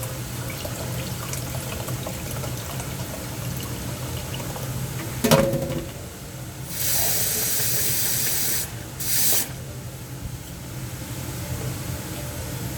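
A pot or dish clanks once, then water from a kitchen tap runs for about two seconds, stops, and runs again briefly.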